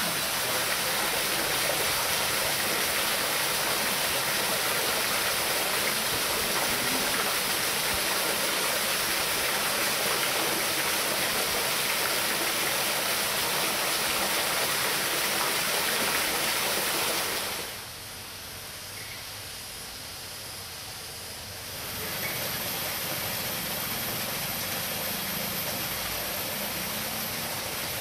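A steady rushing hiss, like running water, that turns quieter for about four seconds two-thirds of the way through and then comes back.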